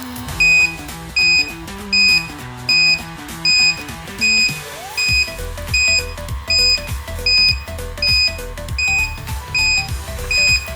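Reversing warning beeper of a 1/14-scale electric RC road roller: a high beep repeating evenly about every three-quarters of a second, the sign that the roller is backing up. Background music plays underneath.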